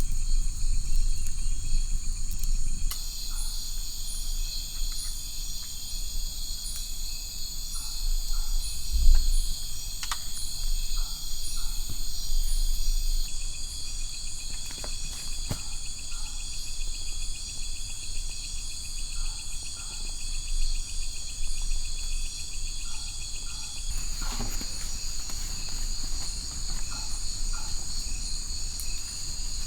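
Night chorus of forest insects such as crickets: several steady shrill trills at different pitches overlap, one pulsing in a regular beat. A lower buzzing trill joins a few seconds in and drops out about twenty-four seconds in, and a dull thump is heard about nine seconds in.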